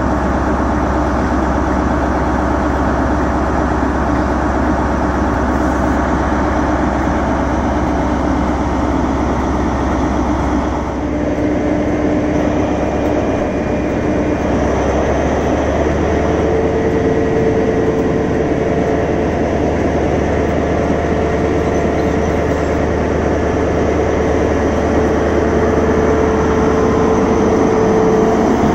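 A 4-car HST (InterCity 125) moving slowly past at close range: its Class 43 diesel power cars and Mk3 coaches give a continuous low drone with rail and wheel noise. A steady whine joins about halfway through, as the rear power car comes alongside.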